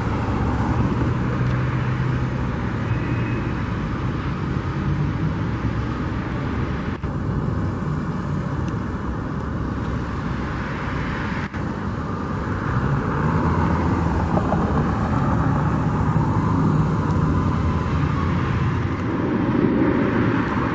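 Steady motor-vehicle and road noise with a low engine hum, a little louder in the second half.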